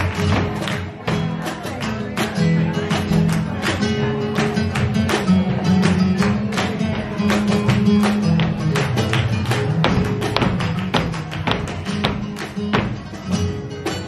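Flamenco music with guitar, driven by a steady rhythm of sharp hand claps (palmas).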